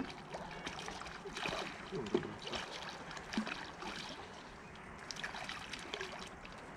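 A hooked carp splashing at the water's surface as it is played close in, with small irregular splashes and water sounds.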